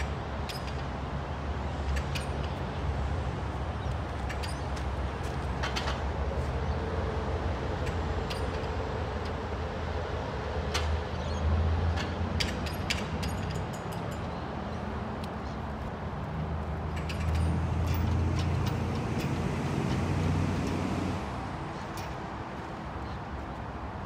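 Diesel engine of a mini excavator running and working its hydraulics under load, swelling louder twice, briefly about halfway through and for a few seconds near the end, with scattered light clinks and knocks over it.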